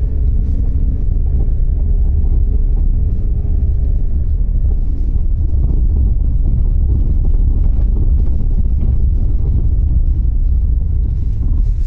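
Steady low rumble of a moving car: road and wind noise, with a faint low hum in the first few seconds.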